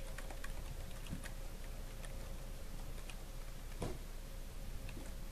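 Faint, irregular keystrokes on a Logitech computer keyboard as a line of text is typed, over a faint steady hum.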